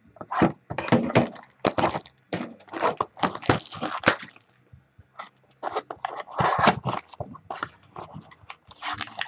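Wrapping and cardboard of a trading-card mini box being torn and crinkled open, a run of irregular rips and rustles with a short lull midway.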